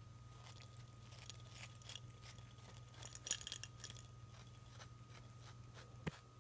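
Cat grappling a fabric catnip toy on a hard floor: a run of light clicks and small metallic jingles, densest a little after halfway, with a soft knock near the end. A steady low hum runs underneath.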